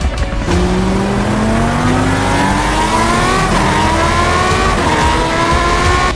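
Racing motorcycle engine accelerating hard, its pitch climbing steadily and dropping back twice as it shifts up through the gears.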